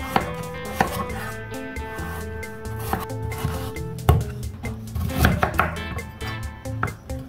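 Knife chopping on a cutting board in irregular strokes, with background music playing underneath.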